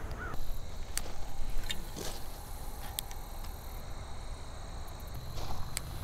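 Quiet outdoor creekside ambience with a few separate sharp clicks about a second apart and a faint steady high tone, over a low rumble that grows near the end.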